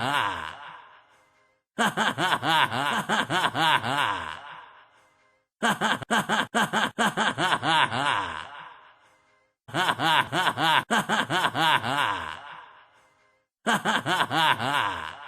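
A man's loud belly laughing: bursts of rapid "ha-ha-ha" that each trail off and fade, repeated four times about every four seconds, the bursts nearly identical. The tail of an earlier burst fades out at the very start.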